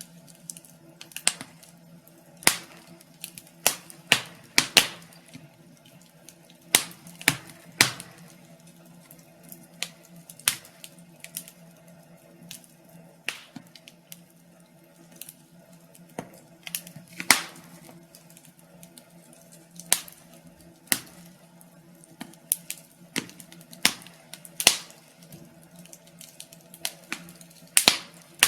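Wood fire in a fireplace crackling: irregular sharp pops and snaps, roughly one loud one a second with smaller ticks between, over a faint steady low hum.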